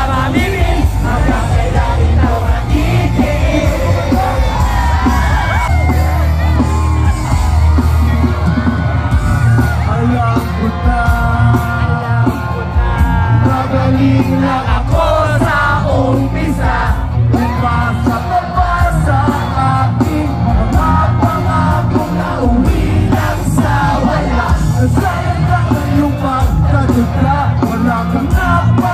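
Loud live concert music: a singer on a microphone over a heavy bass, with the crowd yelling close around.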